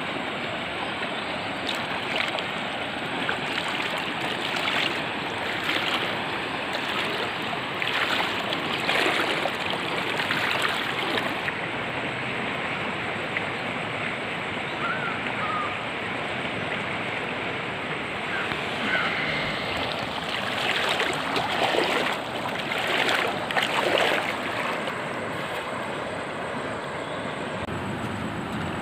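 River water flowing steadily, with louder stretches of splashing about eight to eleven seconds in and again about twenty-one to twenty-four seconds in.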